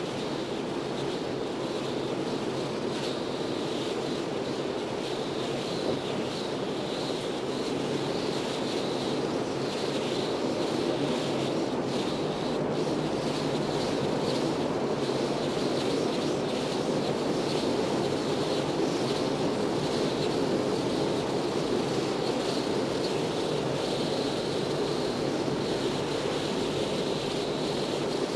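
Moving car's road and wind noise in strong wind: a steady rumbling hiss with a higher whooshing band that swells and fades with the gusts.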